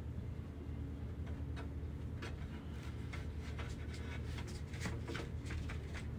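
A kitten pawing, clawing and tugging at a rope: a run of quick scratchy rasps and clicks starting about a second in and thickest over the second half, over a steady low background rumble.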